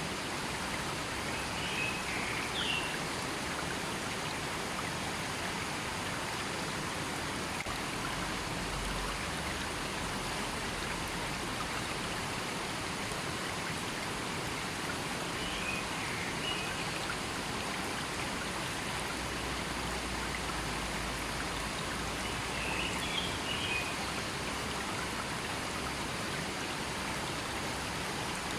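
River water flowing steadily, a constant rushing wash, with three brief clusters of high chirps.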